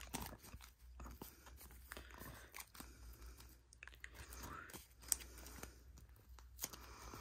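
Small plastic zip-lock bags of mounting screws crinkling faintly as they are handled, with a couple of sharper clicks in the second half.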